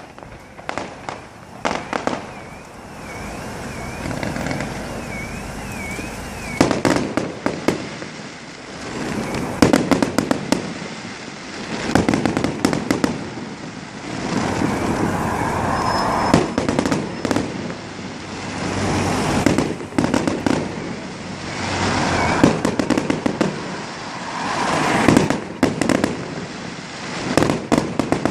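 Fireworks display: repeated sharp bangs and cracks in clusters, with swells of crackling between them and a warbling whistle for a few seconds near the start.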